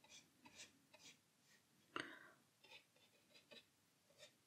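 Near silence with faint scratches and soft ticks from a paintbrush working over watercolour paper, one louder tick about two seconds in.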